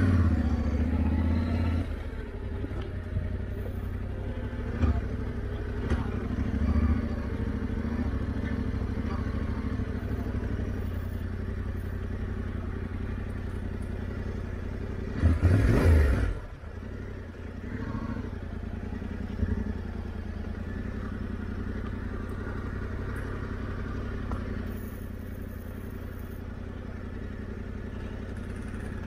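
Yamaha Ténéré 700's parallel-twin engine running at a steady, low pace. It is louder for the first couple of seconds, and the throttle is blipped once in a short rev about halfway through.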